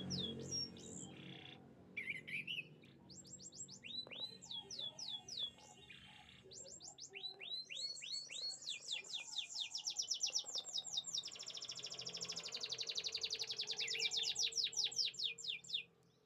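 Domestic canary singing: phrases of quickly repeated falling whistled notes. From the middle onward they run together into a fast, loud trill that stops abruptly near the end.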